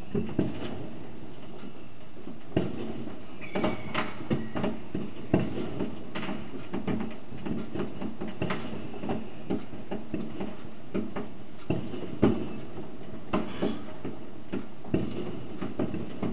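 Fireworks going off all around: many irregular sharp bangs and cracks, some louder than others, over a steady hiss.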